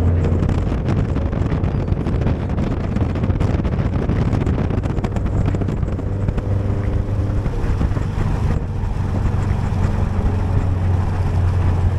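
Car driving at speed, its engine hum and road noise heavily buffeted by wind on the microphone; the engine hum comes through more steadily near the end.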